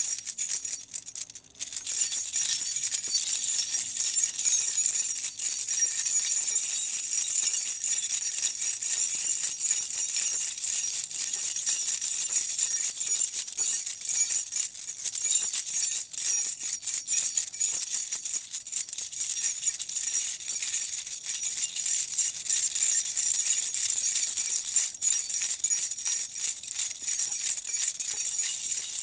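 A ring of keys shaken and jangled without letup, bright metallic jingling, with a short pause about a second in.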